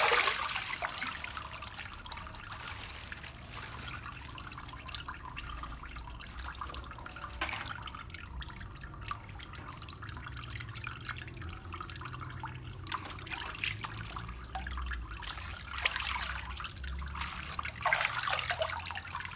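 Water splashing and sloshing in a stainless steel sink as bunches of leafy greens are swished and rubbed by hand, with drips and trickles. Louder splashes come right at the start and twice near the end.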